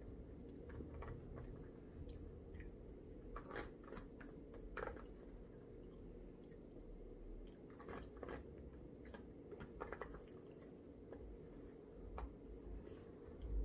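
A person eating quietly: soft chewing with scattered small clicks and taps, over a steady low hum.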